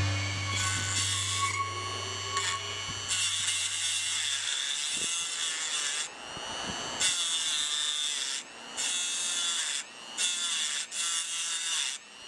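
Dremel rotary tool with a grinding wheel grinding down the sides of a rusted, corroded intake manifold bolt head to form a new head. It runs as a high whine in several bursts with short stops. A low hum sounds under the first few seconds.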